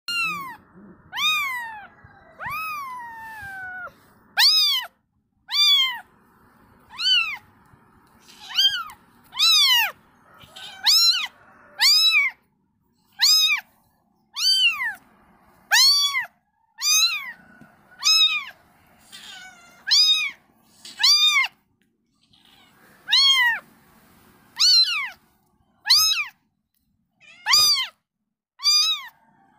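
A cat meowing over and over: short, high-pitched mews, each rising and falling, about one every second and a half. The first few are longer and slide down in pitch.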